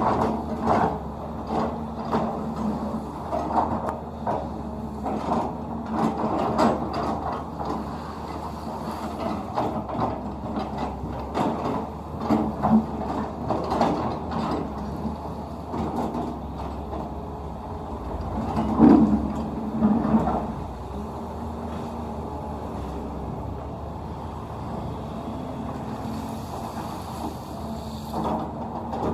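CAT 320D2 hydraulic excavator working: its diesel engine runs steadily under repeated clanks and clatter of the machine at work, with the loudest burst about two-thirds of the way through.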